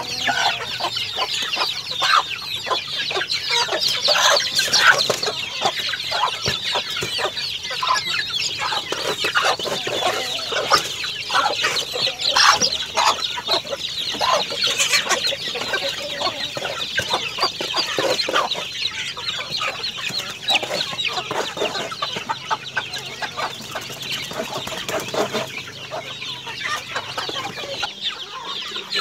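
A flock of chickens, hens and young birds, clucking and calling continuously, many short high calls overlapping.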